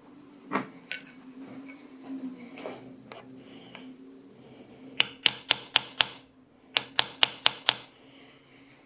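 Small hammer tapping on a metal gun sight to drive it into the slide's dovetail: two quick runs of five sharp, ringing taps, about four a second. The sight is still too tight and will not go in.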